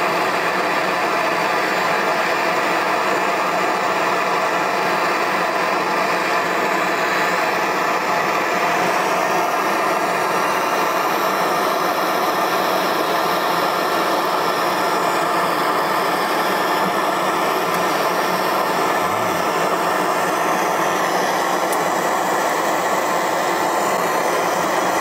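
Handheld MAP-gas torch burning steadily with an even hiss, its flame heating a soldered brass valve fitting on copper pipe to melt the solder.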